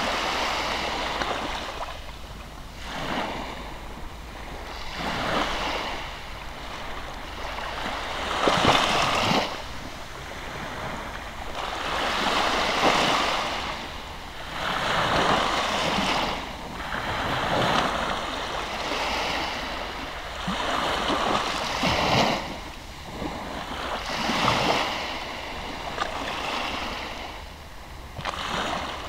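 Small sea waves breaking and washing up a sandy beach, the surf swelling and fading every two to three seconds.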